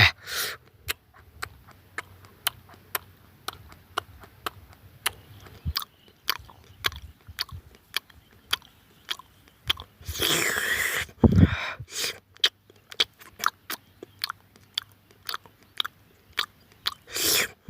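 Close-up eating of barbecued goat: crunchy bites and chewing, sharp clicks two or three a second, with a longer noisy burst about ten seconds in and another near the end.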